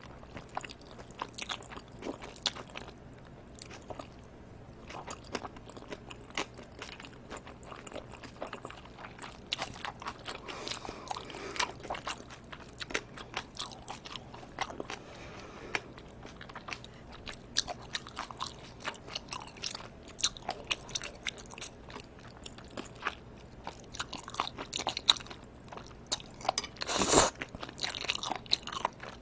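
Close-miked eating sounds of live octopus with cold spicy bibim noodles: steady wet chewing with many small sticky clicks and crackles, and a louder burst near the end.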